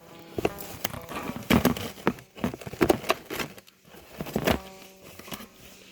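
Plastic wrap crackling and rustling in irregular bursts as it is pulled off a new electric guitar's headstock.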